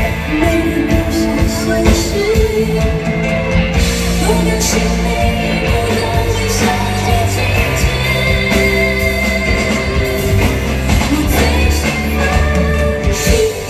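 A female vocalist singing a slow Mandarin pop ballad live with a full band of drums, keyboards, guitar and strings, heard from the audience in a large concert hall.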